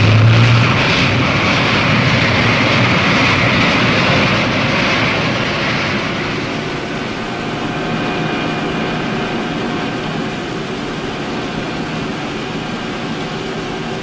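Navy hydrofoil's marinized gas turbine running at high power, with water rushing and spraying. It is a loud, noisy rush at first; from about six seconds in it settles, and steady high whining tones come through as the ship runs foil-borne.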